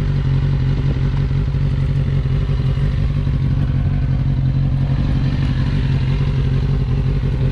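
Kawasaki Ninja 600 inline-four sportbike engine idling steadily.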